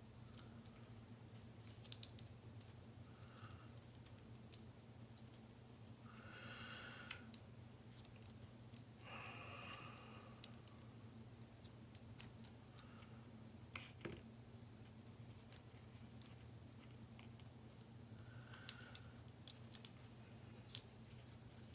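Faint small clicks and ticks of a screw being worked by hand through a tight hole in a plastic RC-kit part, with a few brief squeaks, over a steady low electrical hum.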